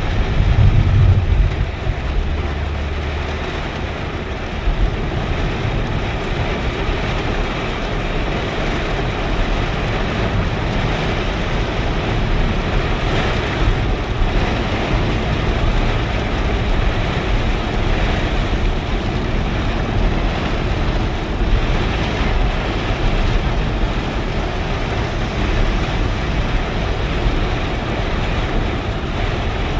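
Steady rain, an even hiss, with a low rumble that is strongest in the first few seconds.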